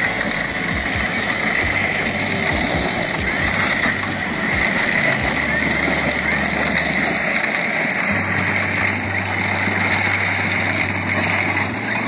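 Background music with a dense, steady sound and low bass notes that change in steps about five and eight seconds in.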